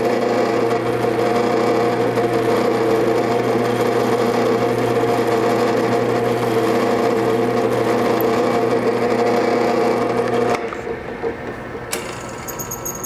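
Bench drill press running steadily with a constant motor hum while it drills a small hole crosswise through a wooden dowel held in a V-block. The hum drops sharply about ten and a half seconds in, and a single click follows a little later.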